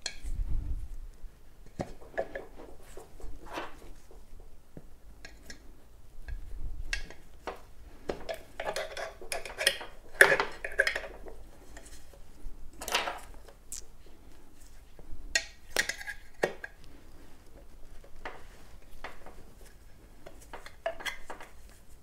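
Tire being levered off an electric unicycle's wheel by hand: irregular clinks and knocks of metal tire levers against the steel rim, with scrapes in between.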